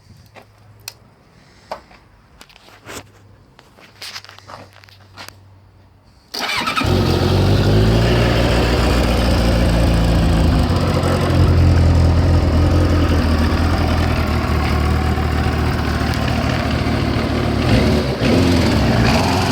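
Kawasaki ZX-9R inline-four motorcycle engine starting: a few faint clicks, then about six seconds in the engine catches suddenly and keeps running loudly and steadily.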